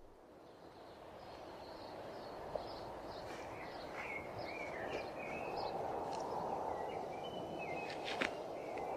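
Outdoor ambience fading in: a steady low rush with small birds chirping over it, and a single sharp click near the end.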